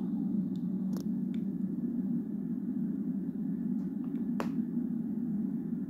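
Steady low hum from a television's speaker during a pause in a launch webcast's narration, with a few sharp clicks, the clearest about a second in and about four and a half seconds in.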